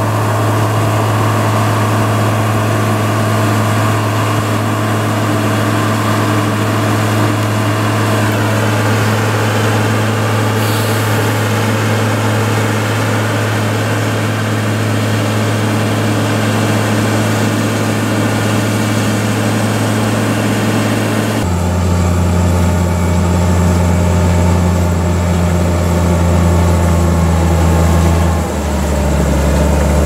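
Komatsu GD505A motor grader's diesel engine running with a steady low drone. The engine note steps down abruptly about two-thirds of the way through and shifts again near the end.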